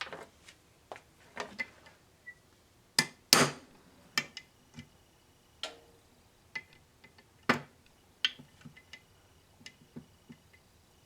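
Irregular clicks, knocks and metallic clinks of hand tools and small metal parts being handled while taking a distributor apart. The loudest knocks come about three seconds in and again about halfway, some with a brief ringing tail.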